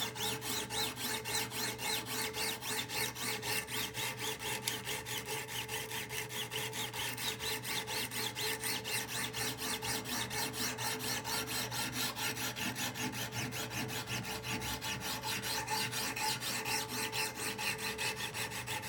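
The 200-grit diamond stone of a Wicked Edge Generation 3 Pro sharpener is scrubbed rapidly back and forth along one side of a clamped knife blade, giving an even, rhythmic rasp of abrasive on steel. This is the coarse-grit stage on one side, meant to raise a burr on the edge.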